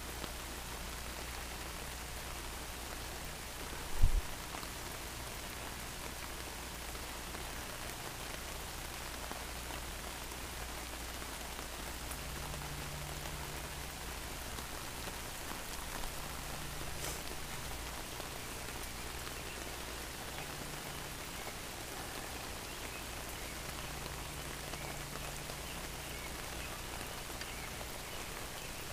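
Steady hiss of rain falling, with a single sharp thump about four seconds in.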